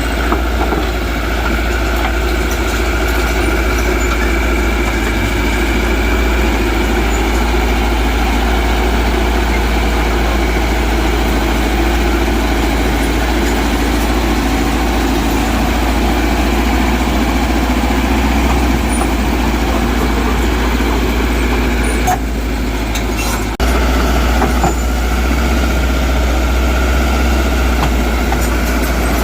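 Diesel engine of heavy earthmoving machinery running steadily, with a short break in the sound a little past the twenty-second mark.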